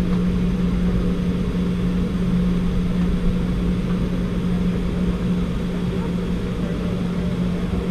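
Steady cabin drone of a Boeing 717-200 taxiing, its two tail-mounted Rolls-Royce BR715 turbofans at idle, with a constant low hum.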